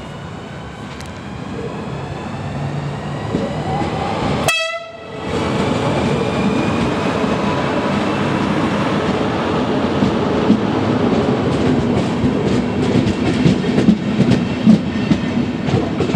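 DB class 112 electric locomotive and its n-Wagen (Silberling) coaches running past at low speed: a faint electric whine that rises a little in pitch, then a growing rumble of wheels with a quick run of clicks and knocks over the rail joints near the end.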